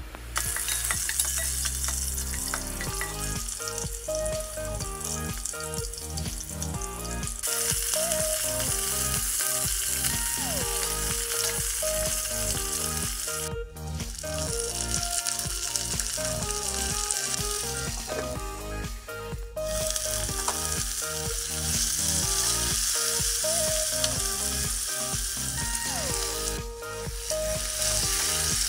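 Sliced onions and chicken pieces sizzling in hot oil in a nonstick pot while being stirred with a spoon. The sizzle cuts off sharply three times, and quiet background music with short melodic notes plays underneath.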